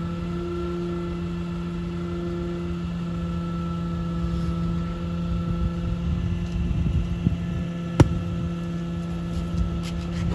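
Garbage truck's diesel engine idling with a steady hum. A single sharp knock comes about eight seconds in.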